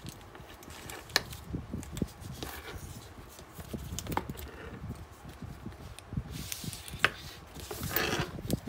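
Metal strap clips clicking against a handbag's brass hardware as a leather shoulder strap is attached, with soft rustling of plastic wrap and handling of the bag. A few sharp clicks stand out, the loudest about seven seconds in.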